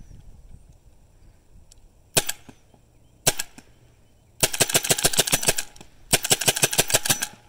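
AGD MiniMag paintball marker firing: two single shots about a second apart, then two rapid strings of shots, around nine a second, each lasting a little over a second.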